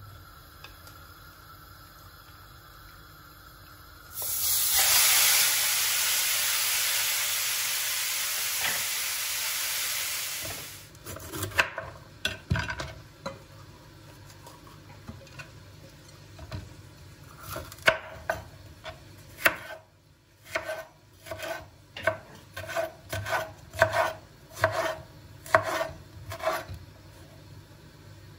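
Cooking sounds: a loud steady hiss for about six seconds that cuts off suddenly, then a run of short rhythmic strokes, about two a second near the end.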